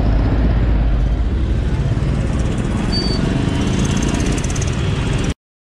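Commuter motorcycle engine running at low speed in traffic, heard as a dense low rumble with road noise and a short high tone about three seconds in; the sound cuts off suddenly near the end.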